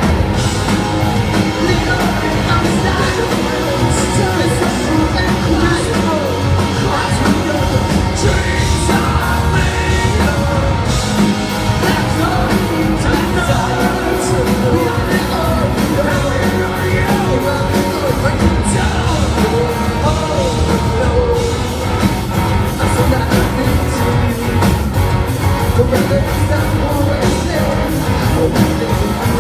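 Rock band playing live, heard from among the audience: electric guitars, bass and drums with a sung lead vocal, loud and unbroken.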